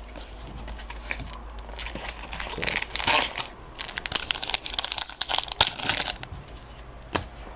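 Crinkling and rustling of a foil trading-card pack wrapper being handled, with quick crackles. The crinkling is loudest about three seconds in and again from about four to six and a half seconds.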